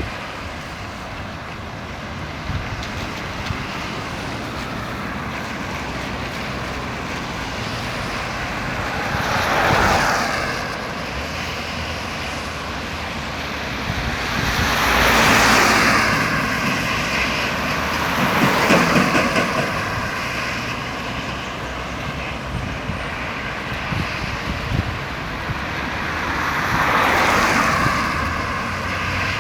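Road traffic: vehicles passing one after another over a steady background rumble. Four louder pass-bys swell and fade, about a third of the way in, twice around the middle, and again near the end.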